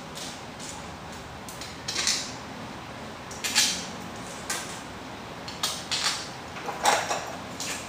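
Small parts being handled and fitted by hand: clear plastic frame pieces, screws and nuts clicking and clinking against each other and the tabletop. The clicks come singly at uneven intervals, the loudest near the end.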